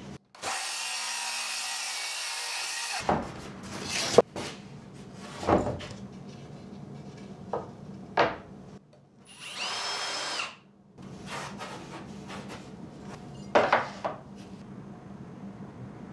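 A power drill running in two short bursts, the first about two and a half seconds long and the second about two seconds, its whine rising and then falling in pitch. Sharp wooden knocks and clatter from pieces of wood being handled fall between the bursts, the loudest just after the first.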